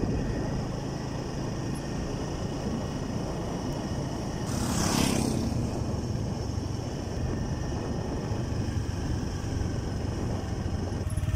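Motorcycle engine running steadily while riding, with a low drone throughout and wind on the microphone; a brief loud rush of noise about halfway through.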